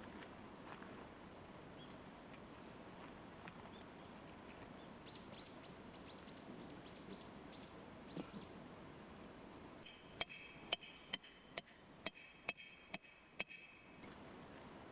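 Quiet outdoor background with a bird calling a quick run of about ten high, down-slurred chirps, then a series of about eight sharp clicks, roughly two a second, that ring briefly and are the loudest sounds.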